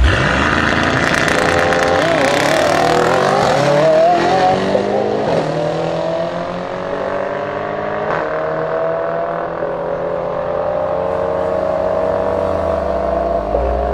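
Mercedes-AMG E63 S twin-turbo V8 and Lamborghini Aventador V12 launching hard together from a standing start, both engines at full throttle. The pitch climbs through each gear and drops briefly at each upshift, and the sound slowly fades as the cars pull away down the strip.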